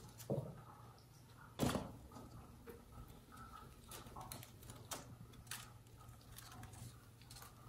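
A loud thump about one and a half seconds in, as a small animal lands after jumping down into a wicker playpen, then light scattered taps and scratches of small paws on the wicker and floor.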